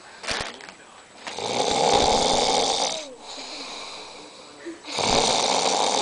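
A sleeping person snoring: two long snores of about a second and a half each, some three and a half seconds apart.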